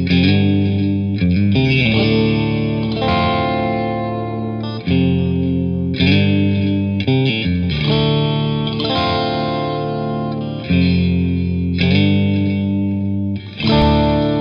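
Fender electric guitar strumming chords, each chord struck and left to ring, with a new chord every second or two.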